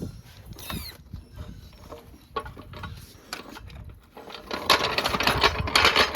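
Hand tools working on a car's brake and wheel assembly: scattered metal clicks and knocks, then about a second and a half of rapid, loud mechanical rattling near the end.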